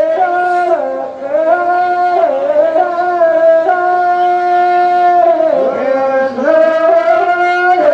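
A reedy wind instrument playing a Rajasthani folk melody in long held notes, sliding up and down in pitch between them.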